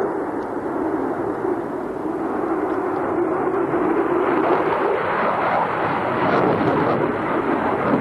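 Jet fighter's engine noise during a display manoeuvre: a steady loud rushing roar that grows louder and brighter about halfway through.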